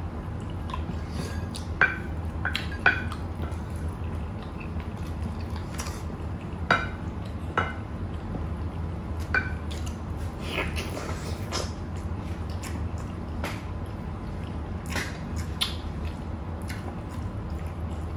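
Close-up eating sounds: wet chewing and lip smacks, with a few sharp clinks of a metal spoon against ceramic plates. There is a brief crunchy stretch of biting near the middle, over a steady low hum.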